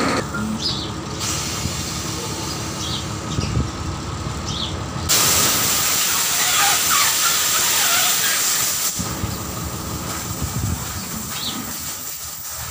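Compressed air hissing through an air-hose chuck into a truck tyre being inflated. The hiss becomes much louder about five seconds in, holds for about four seconds, then drops back.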